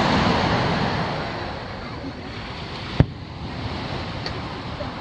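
Surf and wind noise on the beach, a rushing that fades over the first two seconds, with a single sharp firework bang about three seconds in.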